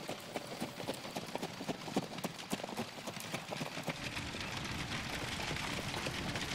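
Horse hoofbeats, a quick irregular clatter of hooves.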